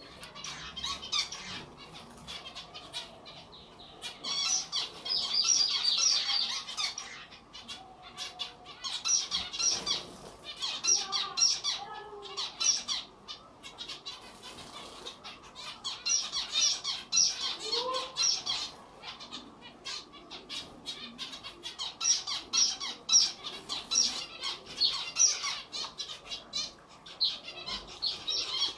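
Zebra finches bathing in a clay water bowl: repeated bouts of splashing and wing-fluttering, each a second or two long, coming every few seconds.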